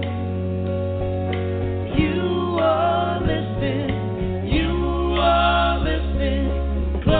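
A song playing: singing over a band with a steady bass line.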